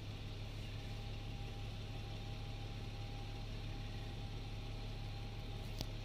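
Steady low hum under an even hiss, with a single sharp click near the end.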